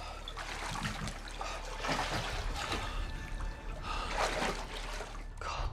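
A man gasping hard for breath in a series of heavy breaths while wading chest-deep in water, with water splashing and trickling around him.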